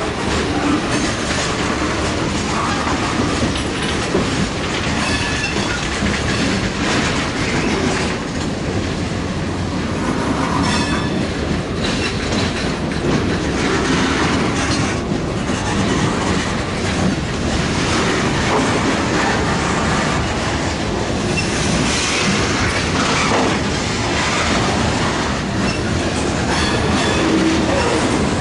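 Norfolk Southern freight train's tank cars and boxcars rolling past close below, with a steady clatter of steel wheels over the rails. A brief faint wheel squeal comes now and then.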